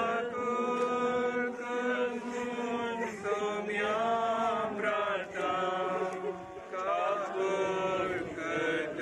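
A slow funeral hymn or chant sung in long, held notes that glide from one to the next.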